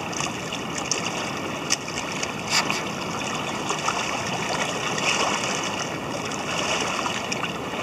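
Steady rushing of river water, with a couple of brief clicks.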